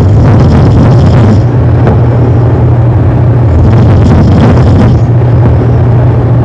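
A man snoring, heavily distorted and bass-boosted: a steady, loud low drone with two snores about three and a half seconds apart, one near the start and one around four seconds in.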